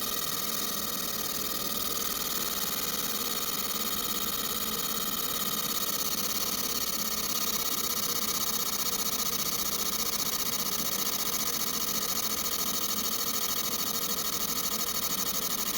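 Compressed-air spray gun hissing steadily as Cerakote is sprayed, with a small air compressor's motor running underneath.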